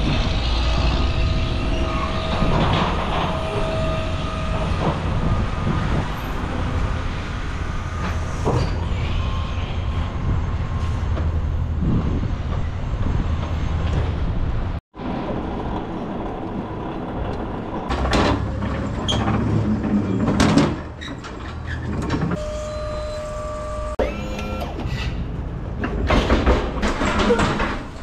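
Truck cab noise while driving: a steady low engine and road rumble with brief steady whines. After a sudden cut about halfway, a run of sharp knocks and clicks over a quieter rumble.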